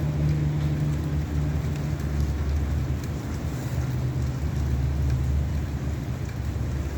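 Heavy rain falling steadily, with a strong low rumble underneath.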